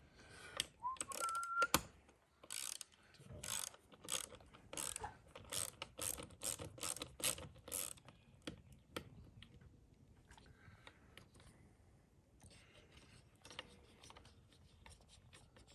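Hand ratchet wrench clicking through repeated strokes on bolts, the clicks coming faster as the strokes quicken, then fainter and more scattered. A brief high squeak comes about a second in.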